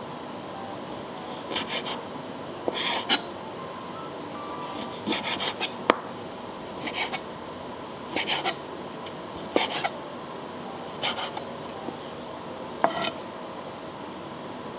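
Chef's knife slicing cooked octopus tentacle on a wooden cutting board. The cuts come in short bursts of two to four quick strokes, some ending in a sharp knock of the blade on the board, about every second and a half.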